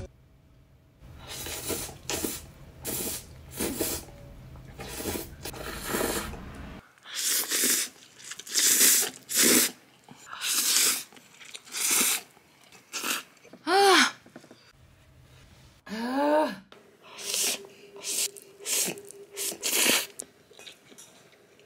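Close-up eating sounds of spicy cup yakisoba noodles: a string of wet slurps and chewing, one or two a second, after a quiet first second. Near the middle come two short pitched sounds from the eater's throat that rise and fall.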